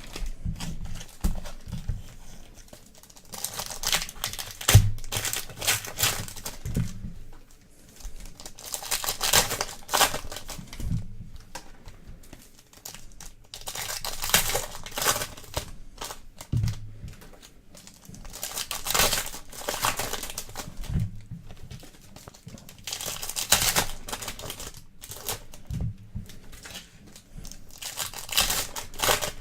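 Trading card pack wrappers being torn open and crinkled by hand, in repeated bursts of crackling a few seconds apart.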